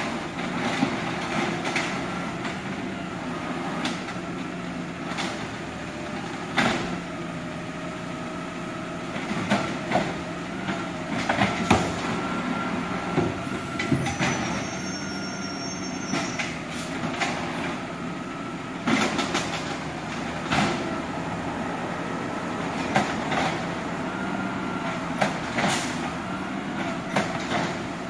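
Refuse truck working at a distance: a steady engine hum, a whine that comes and goes, and irregular clanks and bangs throughout.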